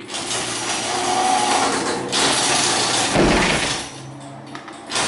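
LiftMaster garage door opener running loudly as it drives the door, with a low thump about three seconds in, a brief drop in the noise, and the motor starting again near the end. The door will not go down and keeps stopping; the owner later traced this to dirty safety-sensor lenses.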